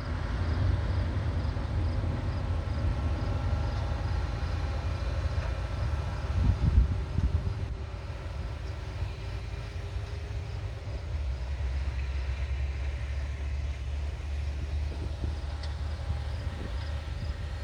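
Potato-harvest machinery and a loaded truck running steadily at a distance: a low engine rumble with a faint hum over it, briefly louder about six to seven seconds in.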